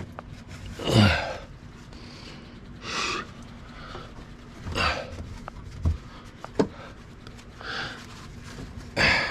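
A man's heavy breaths and grunts of effort, coming every second or two, with a couple of light knocks in between.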